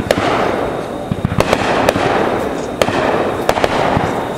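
Fireworks going off: a continuous crackling with about eight sharp bangs at irregular intervals.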